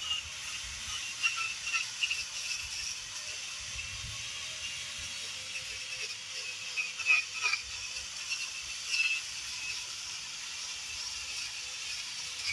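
Grinder with a wire brush running against rotted wood, with a steady motor whine under a scratchy hiss. Louder scrapes come now and then, the loudest about seven seconds in.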